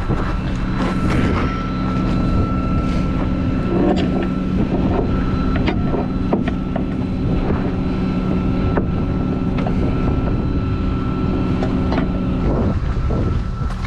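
Flatbed tow truck running steadily in a constant hum with a thin high tone over it, while scattered metal clanks and knocks come from work at the car's wheel and chain on the steel bed.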